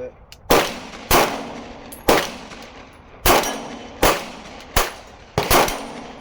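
Springfield XD Mod.3 pistol fired shot by shot, about eight sharp reports at a slow, uneven pace, each with a short ringing tail.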